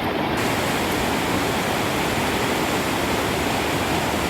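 A swollen mountain creek in high water, rushing water running steadily.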